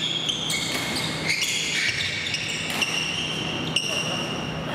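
Badminton rally on an indoor court: sharp racket strikes on the shuttlecock roughly a second apart, with high squeaks of shoes on the gym floor between them.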